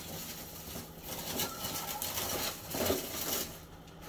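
A person drinking cold water, gulping and swallowing with a louder swallow about three seconds in.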